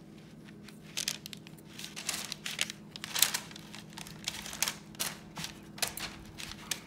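Parchment paper crinkling and rustling in irregular bursts as hands work wooden skewers on it, starting about a second in, over a faint steady hum.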